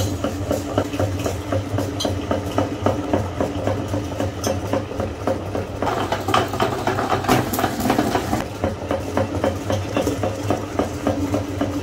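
Motor-driven meat grinder running with a steady low hum and a rapid, regular ticking as its auger forces kinetic sand through the plate. The sound gets noisier in the middle, while the hopper is being fed.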